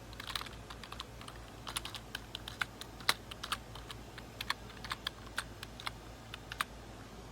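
Typing on a RaceGT 2.4G wireless typewriter-style keyboard with round keycaps: irregular key clicks, a few a second, stopping shortly before the end.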